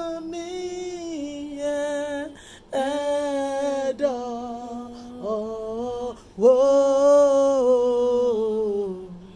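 One voice singing unaccompanied, in long held notes grouped into several short phrases with brief breaths between them; the last, longest phrase slides down and fades near the end.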